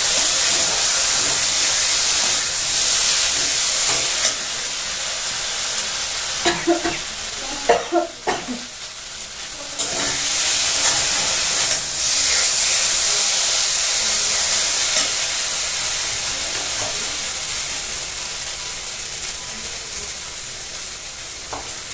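Spice masala frying in hot oil in a pan, a steady sizzle that dips twice and slowly fades toward the end. A few short knocks and scrapes of the stirring spoon about seven to eight seconds in.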